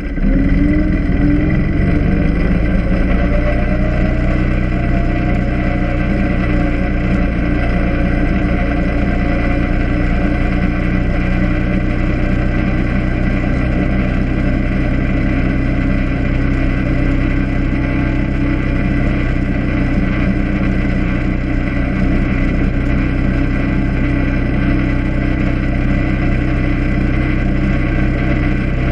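ATV (quad) engine running under way, its pitch rising over the first few seconds as it speeds up, then holding a steady cruising drone.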